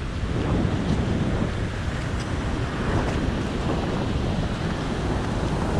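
Strong wind buffeting the microphone, a steady low rumble over the wash of hurricane-swell surf.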